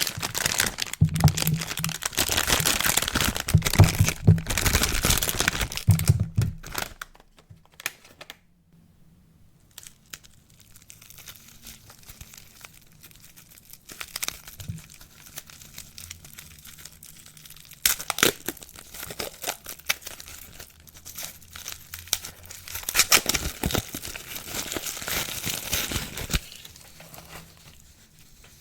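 Soap wrappers being crinkled and torn open by hand. A dense stretch of crinkling runs for the first several seconds, then comes a pause and a few scattered crinkles, and a second busy stretch of crinkling and tearing dies away near the end.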